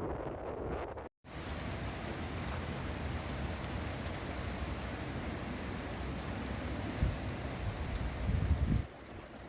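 Rain falling in a steady hiss, with gusts of wind rumbling against the microphone near the end.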